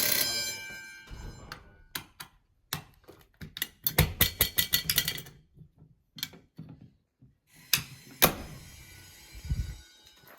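An electric fire alarm bell cuts off right at the start, its ring fading away over about a second. It is followed by scattered clicks and knocks, a quick run of them a few seconds in, and a few heavier thumps.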